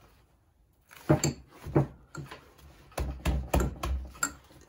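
Irregular metal clunks and knocks as the pistons and connecting rods of a 1957 Harley-Davidson flathead engine are pushed by hand to turn the engine over. A few single knocks start about a second in, then a quicker run of heavier clunks near the middle.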